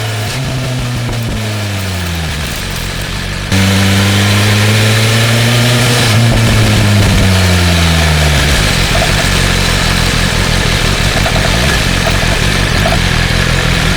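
BMW M1000R's inline-four engine on the move, its note falling as it slows. After a cut about three and a half seconds in it is louder, holds a steady note, then falls again, giving way to a steady rush of wind with the engine running low underneath.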